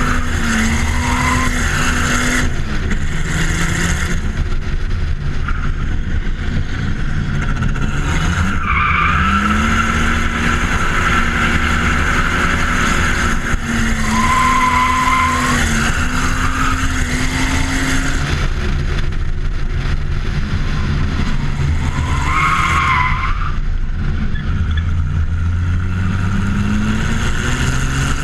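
BMW 325TDS's M51 turbo-diesel straight-six revving up and falling back again and again through drifts. Between the revs come long stretches of tyre squeal as the car slides.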